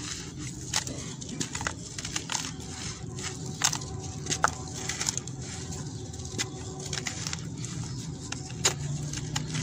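Chunks of sand-cement crumbled by hand over a basin of water: irregular gritty crunches and crackles as the lumps break apart, with loose sand falling into the water.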